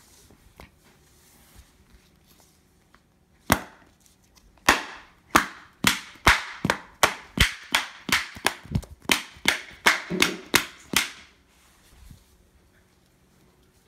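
A fast series of about eighteen loud bangs, roughly three a second, starting about three and a half seconds in and stopping some seven seconds later.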